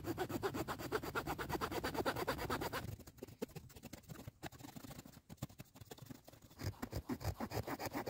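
Small knife blade shaving and scraping a wooden stick in quick repeated strokes while a spoon is whittled. The strokes come fast at first, thin out to scattered cuts after about three seconds, and pick up again near the end.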